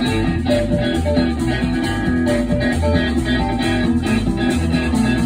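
Live rock band playing an instrumental break: electric guitar, bass guitar, drum kit and digital piano, with a steady drum beat under sustained chords.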